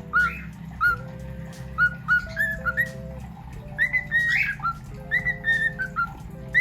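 Recorded music: a whistled melody of short, clear notes, many swooping up at their start, over a soft accompaniment of held lower notes.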